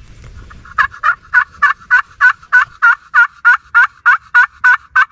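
A long, evenly paced run of turkey yelps, about fifteen notes at roughly three a second, starting about a second in. Each note breaks downward in pitch.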